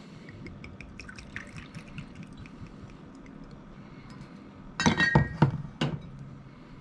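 Gin tipped from a shot glass into a glass jar over ice, with a faint trickle and light ticks. About five seconds in comes a cluster of glass-on-glass clinks and knocks as a glass bottle is set down among other bottles; one clink rings briefly, and a single knock follows.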